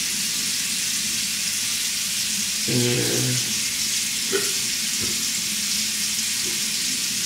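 Bathroom sink tap running steadily, a continuous hiss of water.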